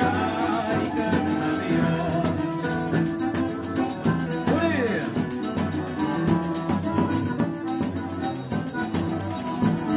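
Live band music: a flute playing the melody over strummed acoustic guitar, with a hand shaker keeping a steady beat.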